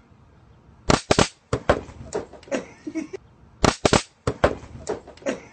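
Handheld stun gun firing its electric arc: loud sharp crackling in two short bursts, one about a second in and another just before four seconds, with shorter cracks and voices in between.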